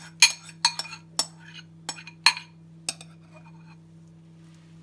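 A metal spoon clinking against cookware, about six sharp irregular clinks that stop about three seconds in, over a steady low hum.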